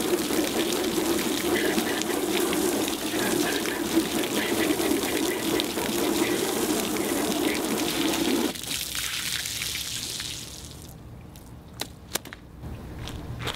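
Garden hose spray wand running water onto a cyanotype print in a clear plastic tub, the water splashing and spilling over the edge as the unexposed chemistry is rinsed off. The spray cuts off abruptly about two thirds of the way through, leaving a fading trickle as the tub drains, then a few light knocks.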